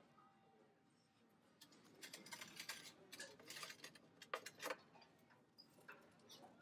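Near silence with faint scattered clicks and light taps of small objects being handled, and two sharper clicks about four and a half seconds in.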